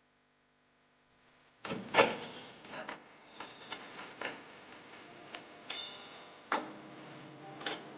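A run of irregular clicks and knocks from household objects being handled, about nine in all, the loudest about two seconds in, after a moment of near silence.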